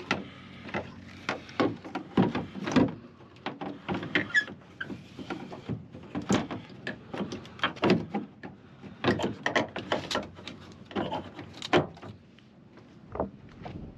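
Irregular plastic clicks and knocks from handling a Ford F-150 tail lamp assembly: the bulb socket is seated in the lamp housing and the housing is pressed back into its opening in the truck body. The handling sounds come in short bunches and ease off for a moment near the end.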